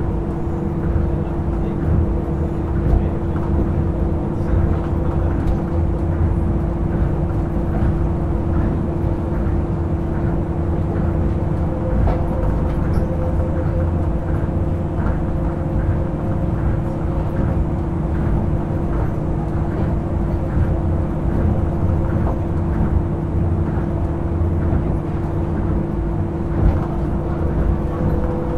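Inside a Tokyo Monorail Series 1000 car (Hitachi-built, resistor-controlled) running at steady speed: a constant low rumble with a steady hum and one sharper bump near the end.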